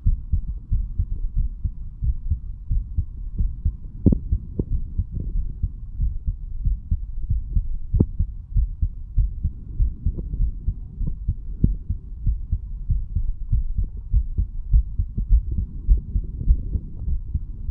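A 35-year-old man's heartbeat heard at the chest: repeated low, dull thuds of the heart valves closing with each beat, which the owner takes as his valves opening and closing nicely and his heart pumping clearly.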